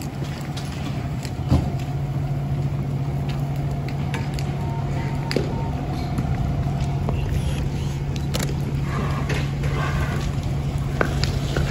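A fire engine's diesel engine running with a steady low hum, with scattered sharp clicks and pops over it.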